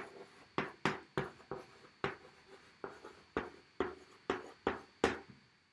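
Chalk writing on a blackboard: a string of short taps and scratches, about three a second, as each letter stroke is made, stopping shortly before the end.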